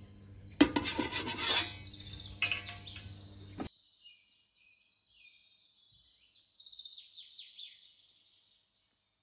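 A steady electrical hum with a loud, rough scraping noise over it, both cutting off suddenly a few seconds in; after that, faint birds chirping.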